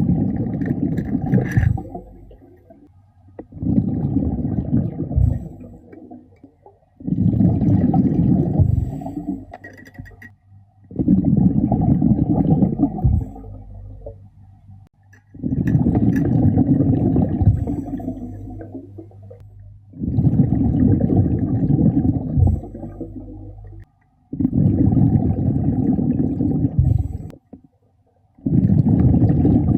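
A diver breathing through a regulator underwater: each exhalation sends out a burst of rumbling, gurgling bubbles lasting two to three seconds, about every four seconds, with quieter inhalations between.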